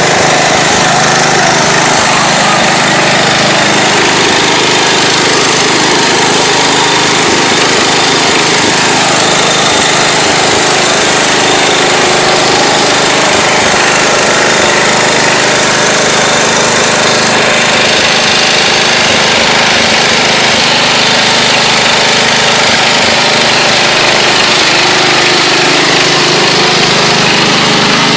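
Massey Ferguson garden tractor's small engine running loud and steady, close up, as the tractor is driven through mud.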